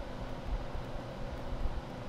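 Central air conditioning unit running, a steady rush of air over a low, wavering rumble.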